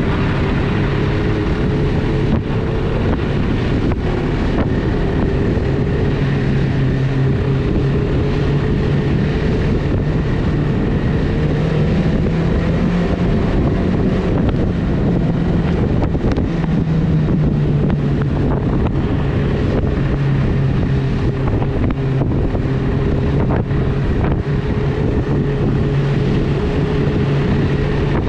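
Snowmobile engine running steadily at cruising speed, its pitch rising and falling a little with the throttle, with wind noise on the microphone.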